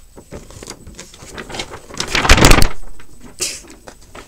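A glossy paper card and packaging being handled and rustled close to the microphone. The rustling builds to a loud, crackly burst about two seconds in that lasts under a second, then a shorter rustle follows.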